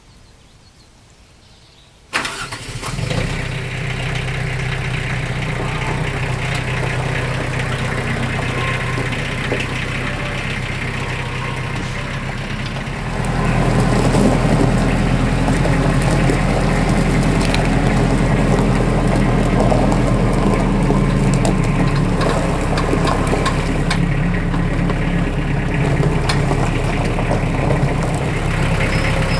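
Compact farm tractor engine starting about two seconds in, then running steadily; about eleven seconds later it runs louder and stays that way.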